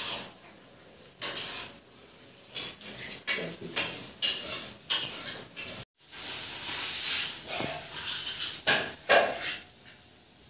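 Scattered clinks, taps and rustles of metal dishes and offerings being handled on a floor, a dozen or so short sharp sounds in the first half. After a brief break, a steady hissing haze with a few more knocks.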